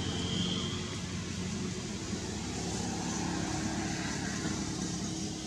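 Steady low engine hum, like a motor vehicle running, with a brief high-pitched chirp just after the start.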